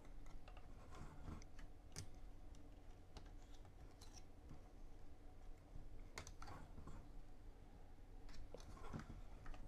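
Faint, scattered clicks and taps of plastic parts as the arm and shoulder joints of a THE Gattai Fightbird transforming robot figure are moved, a few sharper clicks standing out at irregular moments.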